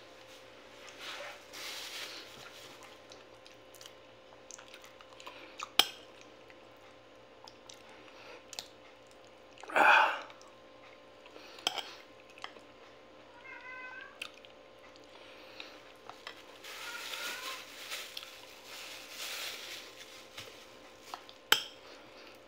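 Eating with a metal spoon from a glass bowl: sharp clinks of the spoon on the glass now and then, with soft chewing between. A cat meows several times, loudest once about ten seconds in.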